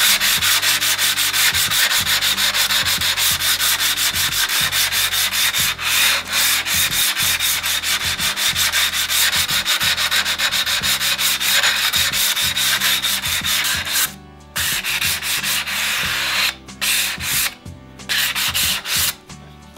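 A 70-grit foam-backed diamond resin hand pad rubbed back and forth along the cut edge of a porcelain tile to bevel it: fast, even rasping strokes, about four or five a second, sped up. The strokes break off briefly a few times near the end.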